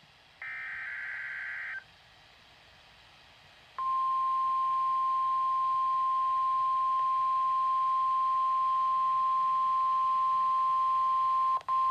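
Emergency Alert System broadcast on NOAA Weather Radio: a short buzzy burst of SAME digital header data, then, about four seconds in, the steady single-pitch 1050 Hz warning alarm tone, with a momentary dropout near the end.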